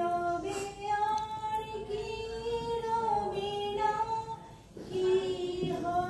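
A woman singing a slow song solo, unaccompanied, in long held notes that slide gently between pitches, with a brief pause for breath about four and a half seconds in.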